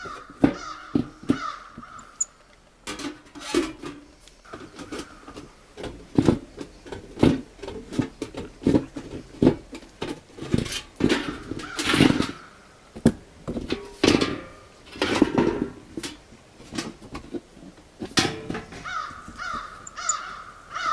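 Tin snips cutting through thin black sheet-steel stovepipe: a long run of sharp metallic crunches, about one or two a second, some louder than others, with harsh rasping as the steel bends near the start and end.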